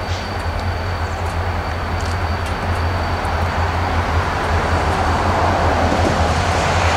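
Reading & Northern diesel freight locomotives approaching, their engines a steady low rumble that grows gradually louder.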